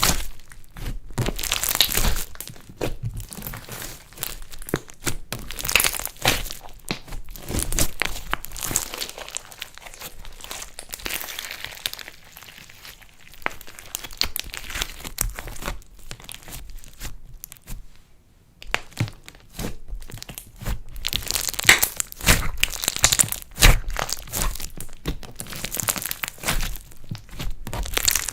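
Slime being squished and kneaded with clay mixed in, making a dense, irregular run of sticky clicks, pops and crackles. The sound eases off briefly past the middle and comes back louder in the last third.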